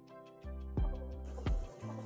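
Background music: held chords over a bass line, with a steady low drum beat coming in under a second in, about one beat every 0.7 s.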